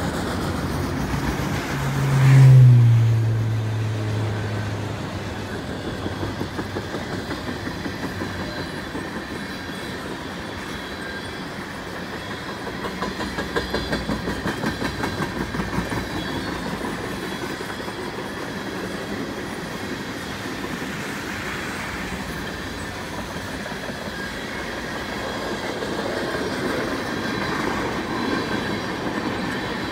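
Freight train of autorack and tank cars rolling past: a steady rumble of steel wheels on rail, with runs of rhythmic clickety-clack as the wheel trucks cross rail joints. About two seconds in, a louder sound with a falling pitch passes and fades over a few seconds.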